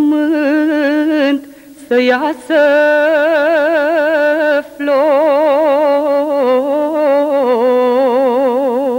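A woman singing a slow Transylvanian folk song solo and unaccompanied, holding long notes with a wide, even vibrato and pausing briefly for breath twice.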